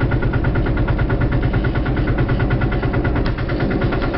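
Truck engine running steadily with a rapid, even pulse, the vehicle driving on a soft, muddy mountain track.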